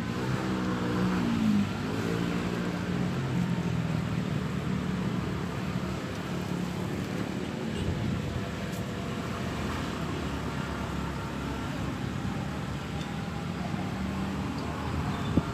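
Steady road traffic noise, with one vehicle's engine falling in pitch as it passes in the first couple of seconds.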